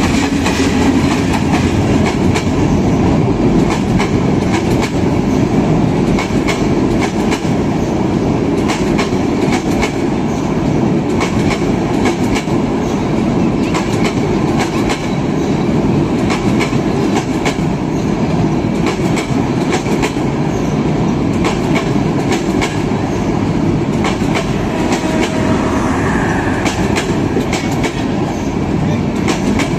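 Train running along the track: a steady rumble with the wheels clattering over rail joints in a continual run of sharp clicks.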